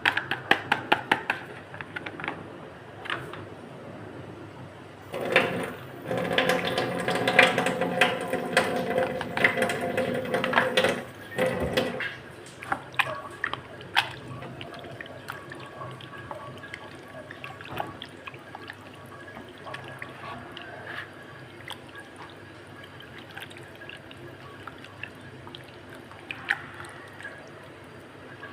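Water running and dripping, with a louder, fuller stretch of flow from about five to twelve seconds in, among scattered sharp clicks.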